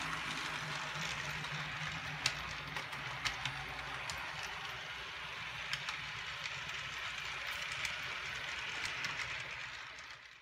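HO-scale model train running on the layout's track: a steady whir from the locomotive's motor and wheels, with a low hum and a few scattered clicks as the wheels pass rail joints.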